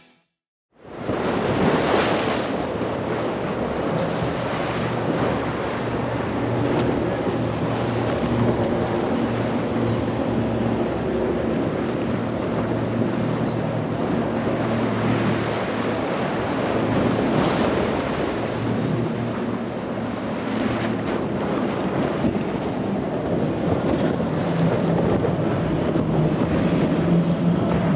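Powerboats running fast through choppy water: a steady rush of wake and spray with wind on the microphone, and outboard engines droning underneath, starting about a second in. The drone is clearest near the end as an MTI catamaran on twin Mercury 450R supercharged V8 outboards runs past.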